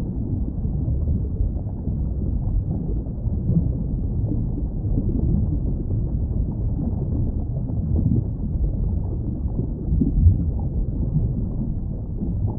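Underwater ambience: a steady, muffled low rumble of moving water with nothing in the upper range, swelling briefly about ten seconds in.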